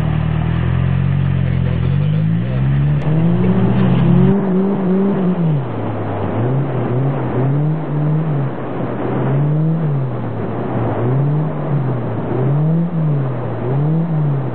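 Car engine revving up and down over and over while the car drifts on snow, its pitch rising and falling about once a second in the second half, over a steady rushing noise.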